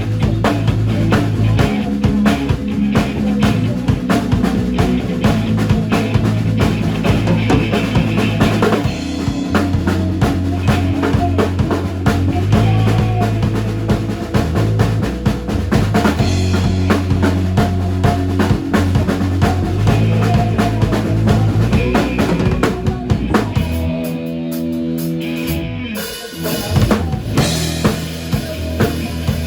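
Band music with no singing: a drum kit with snare and bass drum keeps a steady beat over bass notes. The music thins to a short break about three-quarters of the way through, then the full band comes back in.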